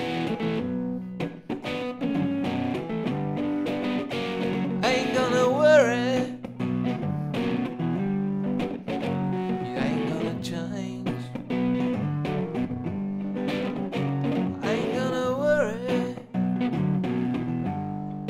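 Les Paul-style electric guitar playing chords continuously, with a man singing a phrase about five seconds in and another about fifteen seconds in.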